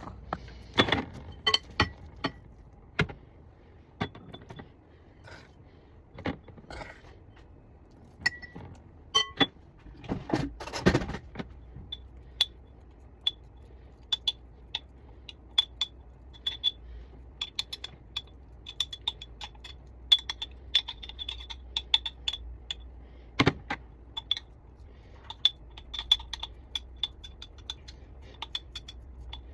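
A spoon clinking and scraping against a mixing bowl and glass jars as the almond-meal and coconut base is mixed and spooned in. Scattered knocks at first, then rapid, light, ringing clinks through the second half.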